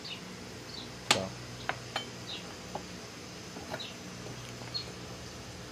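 A few sharp clicks and taps from handling the motorcycle's rear brake caliper parts, the loudest about a second in. Short falling chirps of a small bird come about once a second over a steady low hum.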